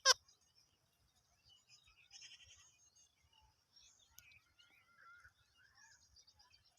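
Indian ring-necked parakeet (rose-ringed parakeet) calling: a short sharp screech right at the start, then soft, faint chattering about two seconds in and again around five seconds.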